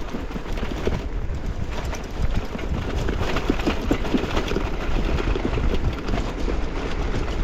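Bicycle rolling fast down a rough forest dirt track, rattling and clattering over the bumps, over a steady low rumble.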